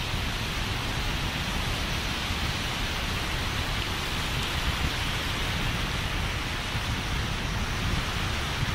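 Wind buffeting the phone's microphone over the steady hiss of surf washing onto the shore: a loud, unbroken rushing noise with a rough, gusty rumble underneath.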